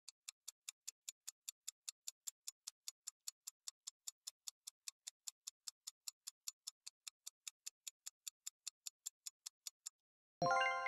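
Quiz countdown timer sound effect: steady clock-like ticking, about five ticks a second, which stops just before a bright chime of several ringing tones sounds near the end, marking time up and the answer reveal.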